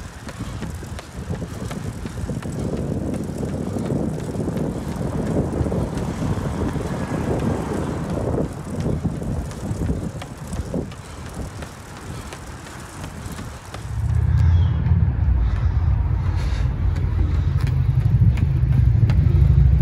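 Wind and road noise picked up on a camera filming from a moving bicycle: a rushing, fluttering noise. About fourteen seconds in it gives way to a louder, deep rumble.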